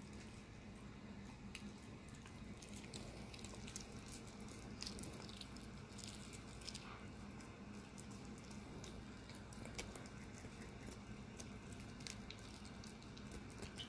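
Italian greyhound gnawing on a bully stick held in a hand: faint, irregular clicks and squelches of teeth and jaws working the chew.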